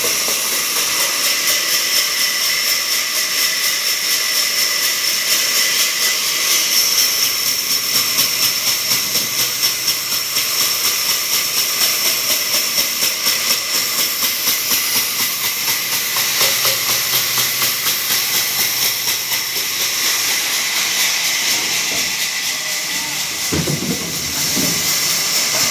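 Large vertical band saw running and ripping a timber plank lengthwise: a loud, steady, high hiss and whine that pulses a few times a second.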